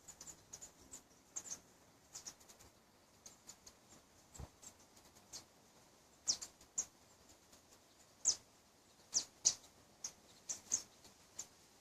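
Irregular sharp little clicks and ticks, high and dry, spaced unevenly a few per second, with the loudest ones in the second half.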